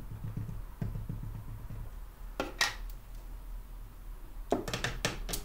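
Craft handling sounds: a wood-mounted rubber stamp and a small plastic ink pad being tapped together and pressed onto paper on a tabletop. Soft rubbing at first, then a couple of sharp clicks about two and a half seconds in and a quick run of clicks and knocks near the end.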